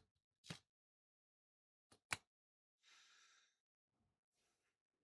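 Near silence, broken by a few brief faint clicks near the start and about two seconds in, and a short breathy hiss about three seconds in.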